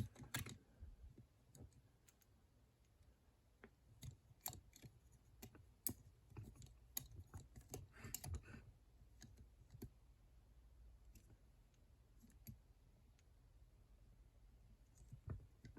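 Faint, irregular clicks and scrapes of picking tools working the levers inside a six-lever Chubb patent padlock. The clicks come in small clusters, with a quieter gap of several seconds in the second half.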